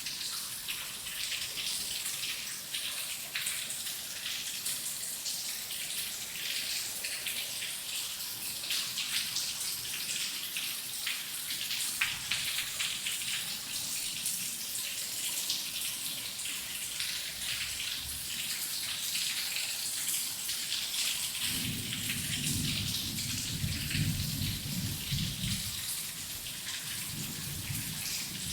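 Heavy rain falling steadily, a dense hiss of many drops. About three quarters of the way through, a low rumble of distant thunder rolls in for a few seconds, dips, and comes back near the end.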